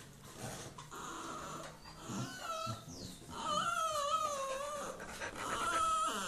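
Dog whining to be fed: soft snuffling at first, then high, wavering whines from about two seconds in, drawn out and loudest in the second half.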